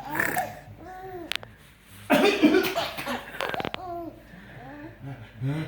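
Laughter in repeated short rising-and-falling bursts, with a louder, harsher burst about two seconds in.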